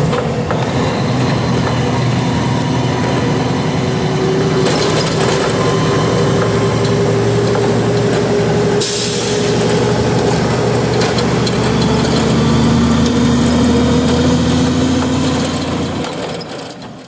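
Semi truck running down the road: steady engine and road noise, the engine's pitch drifting slowly up and down. It fades out near the end.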